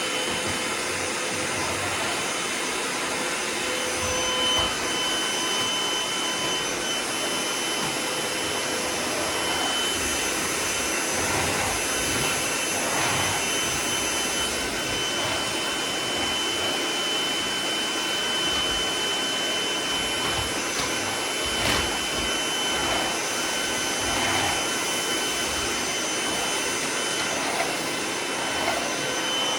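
Sanitaire MightyMite canister vacuum running steadily while vacuuming bare floor, its motor giving a steady whine over the suction noise, with a few light knocks from the floor tool.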